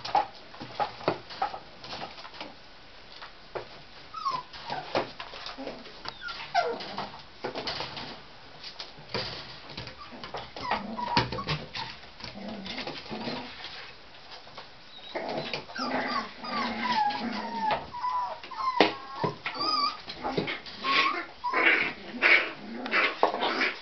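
Tibetan terrier puppies whimpering and yipping in short squeals that bend up and down in pitch, among frequent small knocks and scuffles. The squeals come thicker from about halfway through.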